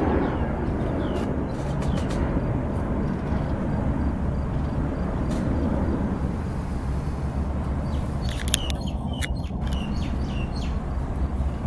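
Distant jet airliner climbing out after takeoff: a steady low rumble. Small birds chirp briefly near the start and several times in the last few seconds.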